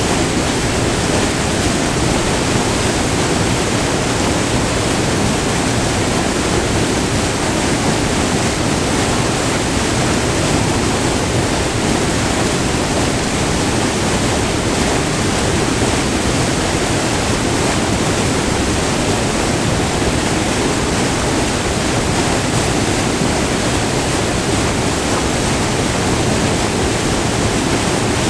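Steady rushing of white water pouring over a short, multi-tiered waterfall on the Irondale River, recorded up close, an even, full roar without any change.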